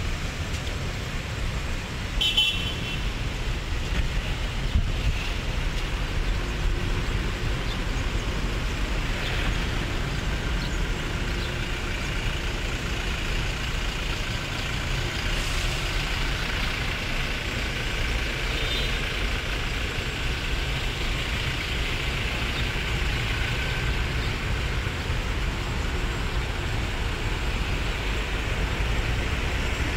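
Steady low rumble of outdoor traffic noise, with a short high-pitched toot about two seconds in.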